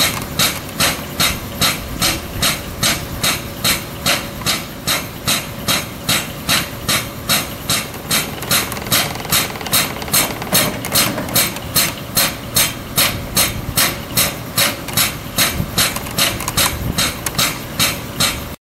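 Graco Husky 1-inch air-operated diaphragm pump running steadily, a sharp puff of exhausting air with each stroke at about two and a half strokes a second, pumping diesel out through the fuel nozzle into a truck's tank. The sound cuts off suddenly near the end.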